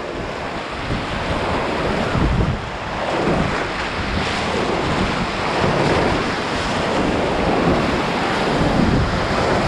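Whitewater rapid rushing around the bow of an inflatable kayak running it: a steady rush of churning water, with spray and wind buffeting the microphone close to the surface.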